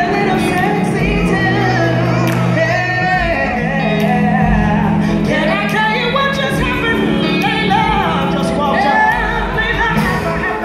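Women singing gospel into microphones with long, bending vocal runs over a live band's sustained low chords, amplified through a PA.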